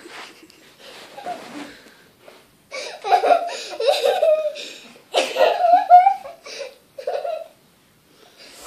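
Young girl laughing and giggling, faint at first, then in several loud bursts from about three seconds in.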